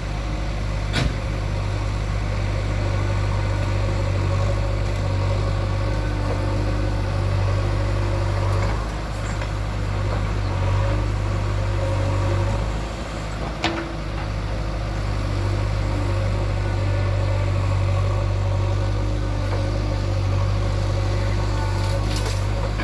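Diesel engine of a JCB 3DX backhoe loader running steadily, its level rising and falling a little as it works, with a couple of sharp knocks: one about a second in and one a little past the middle.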